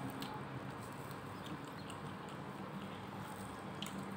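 Faint eating sounds: chewing, with a few small clicks as rice and greens are picked up with plastic-gloved hands, over a steady low hum.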